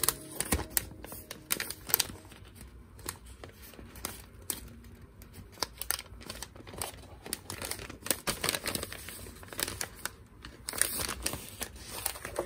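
White paper bags and a fabric scrap handled close to the microphone: irregular crinkling and rustling of paper with small clicks, busier about a second in and again near the end.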